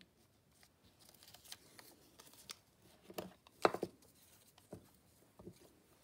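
Craft supplies being handled on a desk: soft paper rustles and a few light clicks and knocks. The sharpest knock comes about three and a half seconds in.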